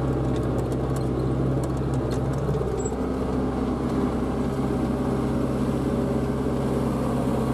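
Renault Ceres 95X tractor's diesel engine running steadily under load while pulling a plough, heard from inside the cab, with a few light rattles.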